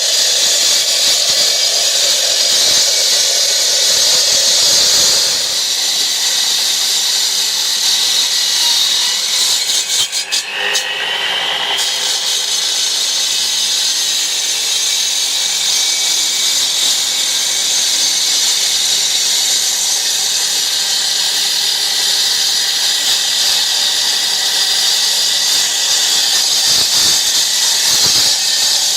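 A 1700 W electric disc cutter runs at full speed, a loud, steady high-pitched whine and hiss. About ten seconds in, it drops off briefly and then climbs back up in pitch as it returns to speed.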